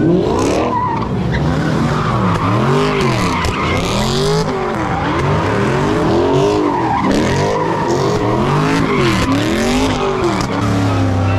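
Dodge Charger doing donuts: its engine revs up and drops back over and over, about every three-quarters of a second, while the tyres screech as they spin and slide on the pavement. Near the end the engine holds a steady pitch.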